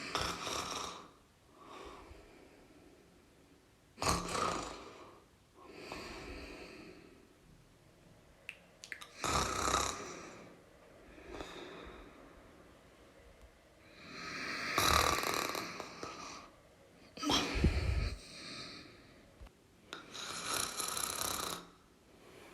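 A person snoring: loud rasping snores alternating with softer breaths, one every two to three seconds, uneven in strength, with one deeper rattling snore about three-quarters of the way through.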